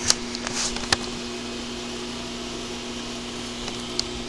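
Steady mechanical hum from running shop equipment, with a few sharp clicks in the first second and one more near the end.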